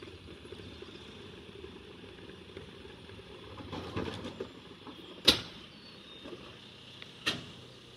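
Bin lorry running steadily at a distance, with a few sharp bangs of wheelie bins being handled at its rear, the loudest about five seconds in and a lighter one near the end.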